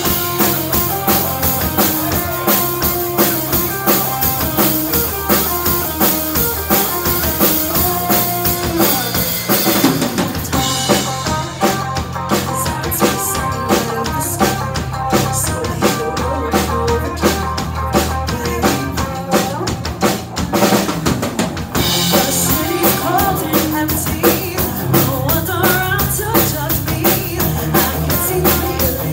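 A live band playing with a steady beat on a full drum kit, with bass guitar and electric guitar. The top end of the cymbals drops back for a stretch in the middle.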